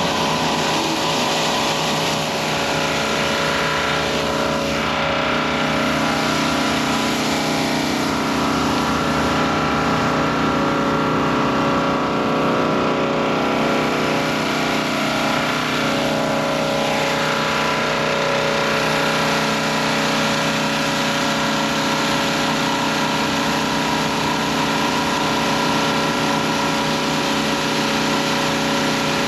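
Stihl RB 400 gas pressure washer's engine running steadily under load, with the hiss of the high-pressure water jet on concrete.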